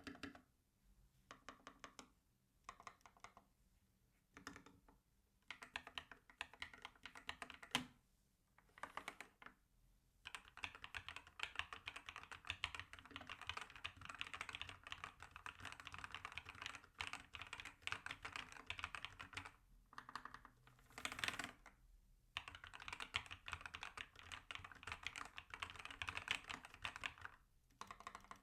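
Custom mechanical keyboard on a MonsGeek MG75 base with Akko Cream Yellow V3 Pro linear switches being typed on: scattered short runs of keystrokes at first, then fast continuous typing from about ten seconds in, with a brief pause around twenty seconds.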